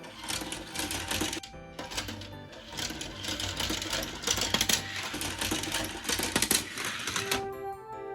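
Rapid, dense plastic clattering of toy vehicles running on plastic toy track, stopping abruptly about seven seconds in, with background music underneath.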